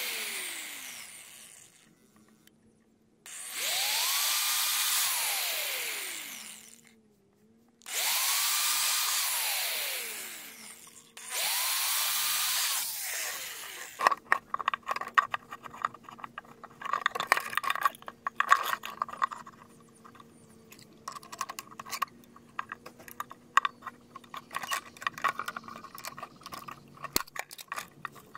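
Electric drill boring holes through PVC pipe: one run winds down, then the motor spins up, runs about three seconds and winds down three more times. From about halfway, PVC pipe pieces clatter and knock in quick irregular clicks as they are handled and fitted together.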